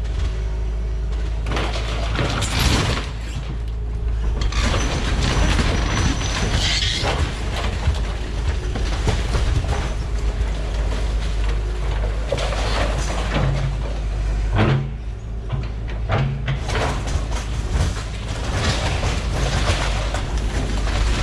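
Excavator engine running steadily under repeated crunching, scraping and clattering of broken mobile-home debris as the machine tears it apart and loads it.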